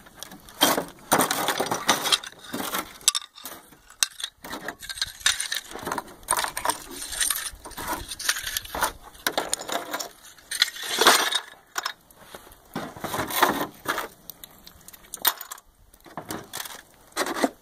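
Irregular clatter and rustling of things handled on a plastic folding table: broken porcelain floor-tile pieces clinking and scraping, and a melted-milk-jug HDPE slab and a plastic jug being picked up and set down.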